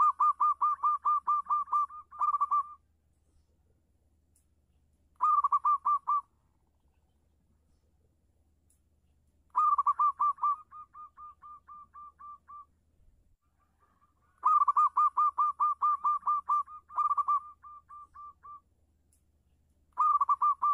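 Zebra dove (perkutut) cooing: bouts of rapid, clear staccato notes, about six a second, each bout lasting one to three seconds and some trailing off into softer notes. The bouts come roughly every four to five seconds, five times over.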